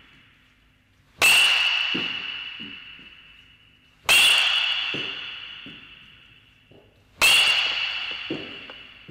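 A metal baseball bat hitting pitched balls three times, about three seconds apart. Each hit is a sharp ping that leaves a high ringing tone fading over a couple of seconds, and softer thuds follow each one.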